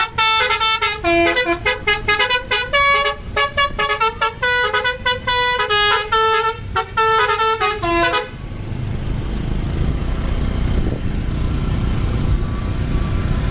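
A bus's telolet 'basuri' multi-tone horn playing a fast melody of short notes that step up and down. It cuts off abruptly about eight seconds in, leaving a low engine rumble.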